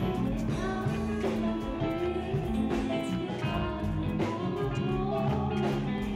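Live band playing a song on keyboard, electric guitar and drum kit, with a woman singing into a microphone.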